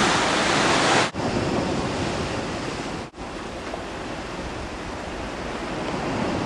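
Ocean surf washing against the shore, with wind on the microphone. The sound cuts out for an instant about one second in and again about three seconds in, and is a little quieter after the first break.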